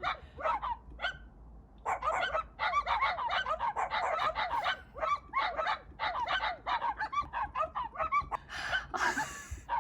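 A fast, dense run of short, pitched animal calls, several overlapping, starting about two seconds in and stopping near the end.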